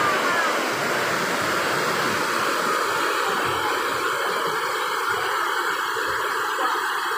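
Water rushing down wide terraced waterfall cascades: a loud, steady roar.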